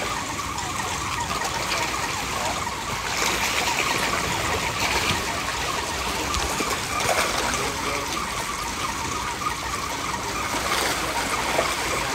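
A dense crowd of feeding fish splashing and churning at the surface of a pond: a steady, crackling water noise.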